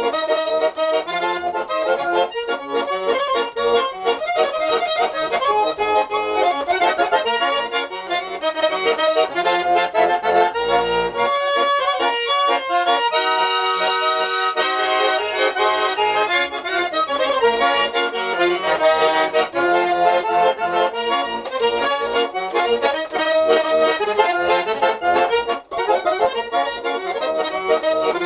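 Nizhny Novgorod garmon, a Russian button accordion, played solo: a continuous improvised melody over chords, with a few seconds of held chords about halfway through.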